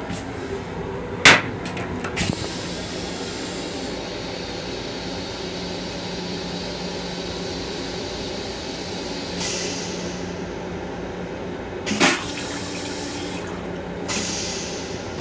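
LIRR M7 railcar toilet flushing. A loud clunk about a second in starts a long hiss of rushing rinse water that lasts several seconds. A second clunk comes near the end, followed by a short hiss, over a steady low hum.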